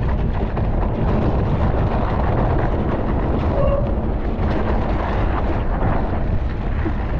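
Wind buffeting a bike-mounted camera's microphone as a mountain bike is ridden, a loud, steady low rumble with scattered short knocks and rattles from the bike.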